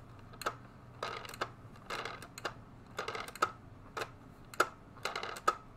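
Hard plastic clicks and clacks from a Hasbro Marvel Legends Black Panther helmet being handled, about two a second and sometimes in quick pairs. They come as a part of the helmet is pushed at and refuses to go up.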